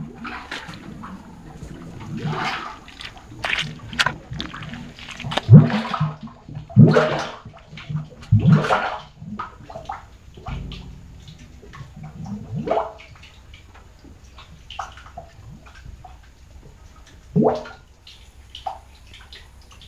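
Water and mud gurgling and burping in a borehole, in irregular bursts, some falling in pitch. The loudest bursts come about five to nine seconds in, then smaller pops and one more burst near the end.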